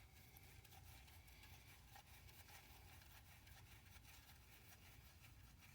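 Near silence: faint steady room tone with a few soft ticks.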